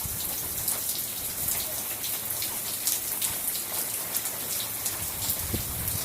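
Heavy monsoon rain coming down hard: a dense, steady hiss with many sharp individual drop impacts.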